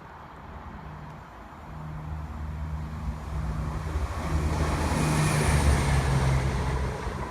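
Diesel train approaching and running past, its engine hum and rail noise growing steadily louder to a peak about five to six seconds in, then easing slightly.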